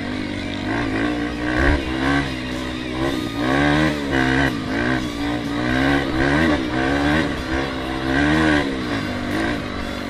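Dirt bike engine heard close up from on board, its pitch rising and falling again and again as the throttle is opened and closed while riding along a dirt trail.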